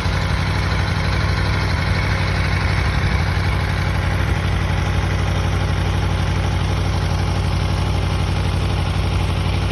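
2021 Aprilia Tuono V4's V4 engine idling steadily through its stock exhaust.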